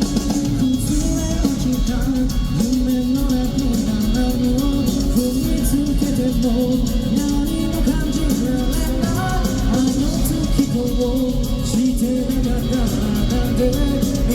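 Live rock band playing at full volume: sung vocals over electric guitars, bass and drums, heard from the audience in a large arena.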